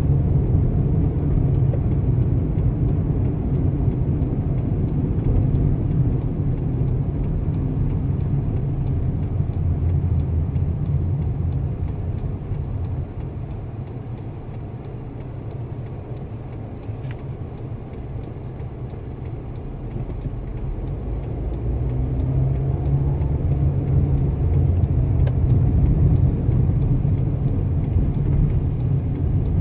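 Car driving, with a steady low rumble of engine and road noise. It eases off for several seconds in the middle, then builds up again.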